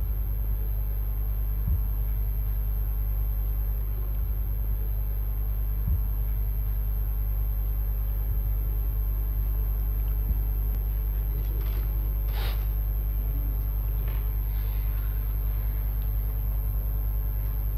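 Steady low rumble of a legislative chamber's room sound through its microphone feed, with a faint high whine above it and a few soft knocks and shuffles from members moving about.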